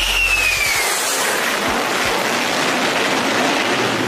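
Loud steady roar of engine noise, with a high whine that drops in pitch during the first second.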